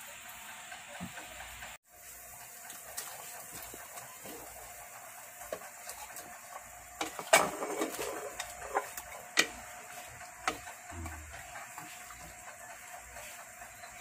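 Steady hiss of a stainless steel pot simmering on the stove. Around the middle, a cooking utensil knocks and scrapes against the pot as chunks of vegetable are stirred in, giving several sharp clanks over a few seconds. The hiss cuts out briefly about two seconds in.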